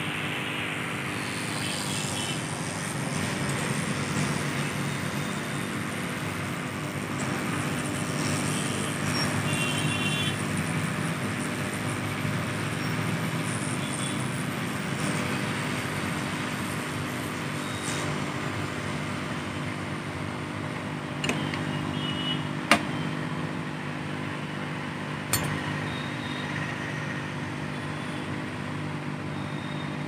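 Hot-air rework gun blowing steadily onto a phone circuit board to desolder components. Three sharp clicks come about two-thirds of the way through.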